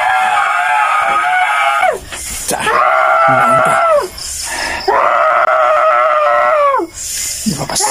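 A woman screaming in long, drawn-out wails of about two seconds each, every one dropping in pitch at its end. There are three in a row, with sharp gasping breaths between them, and a fourth begins near the end.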